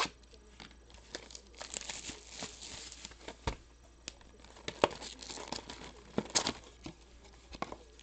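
Plastic wrapping being torn open and crumpled by hand on a sealed box of baseball trading cards: irregular crinkling with sharp crackles, loudest about five and six seconds in.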